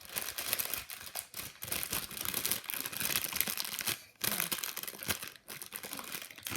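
A packaging bag crinkling as it is handled, with a brief pause about four seconds in.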